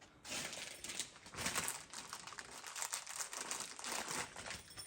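Close hand-handling noise from working a spark plug wire and its boot: a steady run of small crinkling crackles and clicks.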